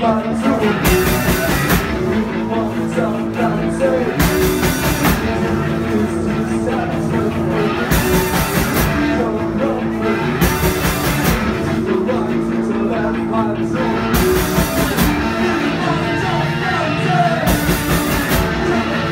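Live rock band playing loud: electric guitar, bass guitar and drum kit, with crashing cymbal passages every few seconds.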